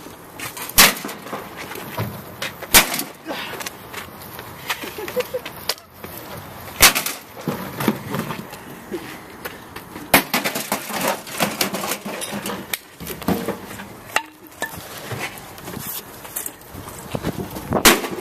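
A microwave oven being smashed: five heavy, sharp impacts spread over the stretch, with smaller knocks, scrapes and rattling of the casing and loose parts between them.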